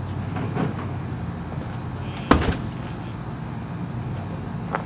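A sharp knock a little over two seconds in, and a smaller one near the end, over a steady low hum.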